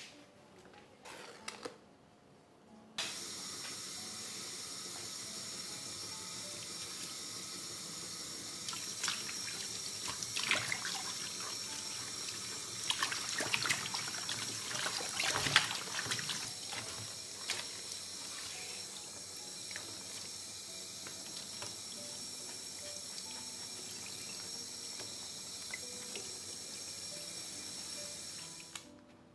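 Water running steadily from a kitchen tap, turned on about three seconds in and off just before the end, with scattered clinks and knocks in the middle.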